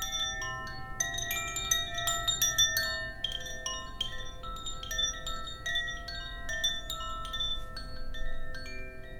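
Koshi chime, a wind chime of tuned metal rods, being swirled so its clapper strikes the rods at random, ringing many overlapping tones at scattered pitches.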